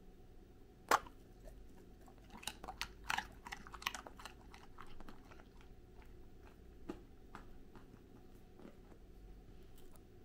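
A Goldendoodle bites into a raw carrot stick with one sharp crack about a second in. It then chews it with a quick run of crisp crunches, thinning to a few scattered crunches.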